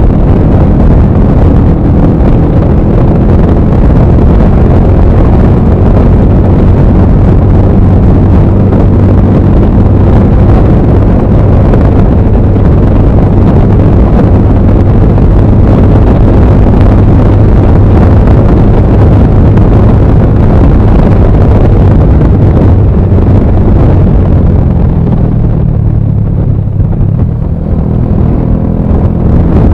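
Wind rushing hard over an action camera's built-in microphone at riding speed, mixed with the running of a Bajaj Pulsar 220F's single-cylinder engine through an aftermarket full-system exhaust. The rush eases a little near the end.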